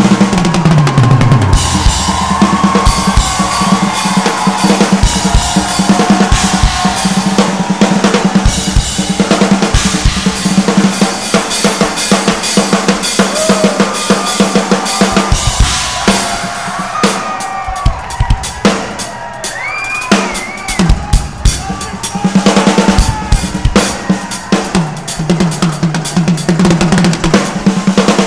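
Drum kit solo played live: fast, dense strokes on bass drum, snare, toms and cymbals, with a steady low note held underneath.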